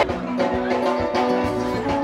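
Zakpota music: drums and percussion keep a steady beat under held melodic notes.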